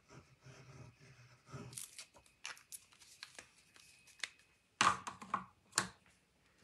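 Crafting handling noise: a plastic glue bottle and card paper being handled on a cutting mat, soft rustling and scraping, then a string of clicks and knocks, the loudest two about five and six seconds in.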